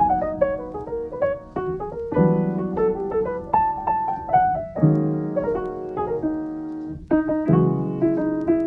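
Background piano music: a melody of single notes over held lower chords.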